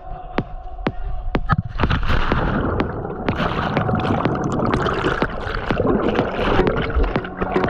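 Water splashing and gurgling as someone jumps into a cenote pool: a few sharp taps, then a dense rush of churning water from about a second and a half in.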